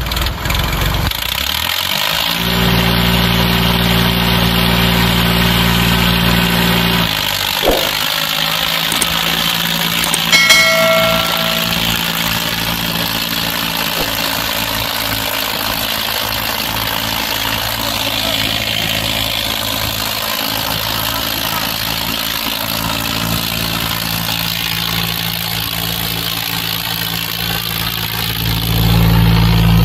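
Preet tractor's diesel engine running under load as the tractor, stuck in wet mud, tries to drive out. A strong steady engine hum from about two seconds in drops back near seven seconds and returns louder near the end. A brief high tone sounds about ten seconds in.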